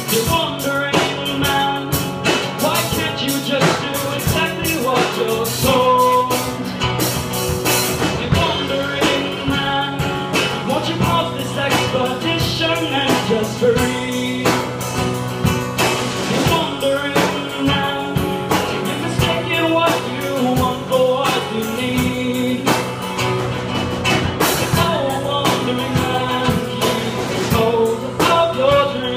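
Live band music: a strummed acoustic guitar with a TAMA drum kit keeping a steady beat, playing a song.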